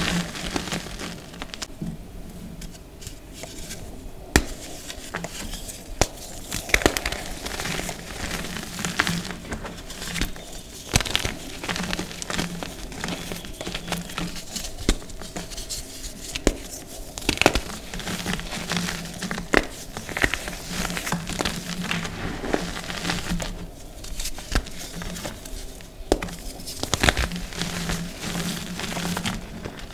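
Hands crushing and crumbling dyed gym chalk, squeezing soft chunks and loose powder in the fists. It gives a dense, irregular run of crunchy, dusty crackles.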